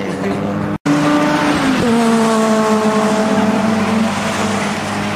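Car engine running hard on a race circuit. About two seconds in, its pitch jumps up sharply, then falls slowly and steadily. The sound cuts out for a moment just under a second in.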